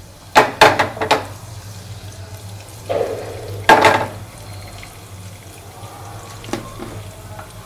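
Cumin seeds sizzling in hot mustard oil in a pan, with loud bursts of sharp clicks and clatter about half a second in and again around three to four seconds in, and a smaller one near six and a half seconds, as the pan is handled on the burner.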